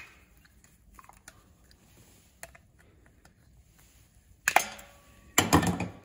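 Tin snips clipping the spare mounting tabs off an Alpine S-S40 speaker's flange: a sharp snip, then scattered small clicks of handling, with two louder knocks and rattles about four and a half and five and a half seconds in.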